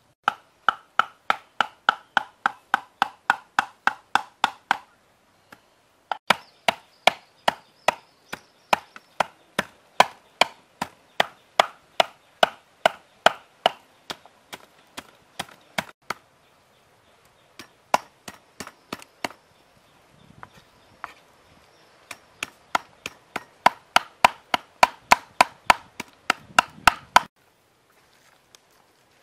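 A knife chopping raw frog meat on a wooden chopping block: steady knocks about three a second, in runs broken by short pauses about 5 and 20 seconds in. The chopping stops a couple of seconds before the end.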